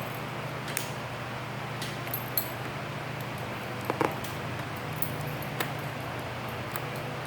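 Scattered light clicks and rattles of a key and ignition lock cylinder being wiggled and turned in the steering column while the release button is held in, over a steady low hum.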